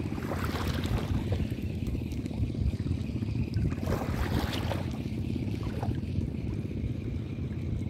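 Wind buffeting the microphone in a steady low rumble, with small waves washing against the shore rocks in a couple of short hissing swells.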